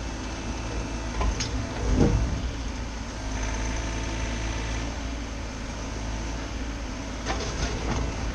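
Bobcat mini-excavator's diesel engine running steadily under hydraulic work, with a few short clanks and scrapes, a heavier knock about two seconds in and a cluster of scrapes near the end.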